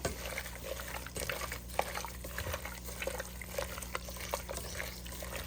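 Raw chicken pieces being mixed and massaged by hand with oil and spices in a pot: irregular wet squelching with small clicks, over a steady low hum.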